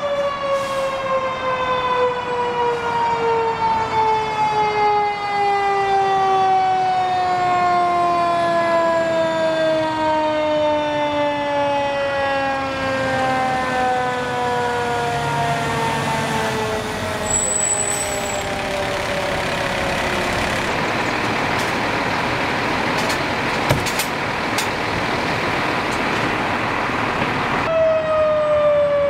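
Fire truck's mechanical siren winding down, its pitch falling slowly and steadily for about twenty seconds until it fades into engine and road noise. A single sharp knock comes near the end, and then a siren sounds again, falling in pitch.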